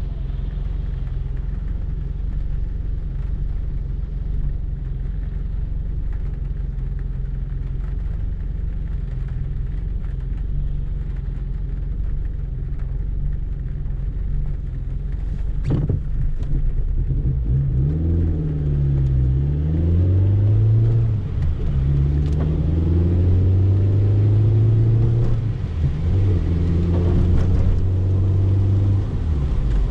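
Peugeot 205 XS's 1.4-litre carburetted four-cylinder engine, heard from inside the cabin, idling steadily at a standstill. After a sharp click a little past halfway, the car pulls away: the engine note rises and drops back several times as it goes up through the gears.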